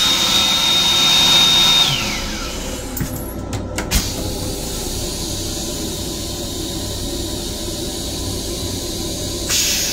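LIRR M7 railcar toilet flushing: a high steady whine from the flush mechanism holds, then winds down and stops about two seconds in. A few sharp knocks follow under a steady rumble and hiss, and a rush of water starts near the end as the toilet flushes again.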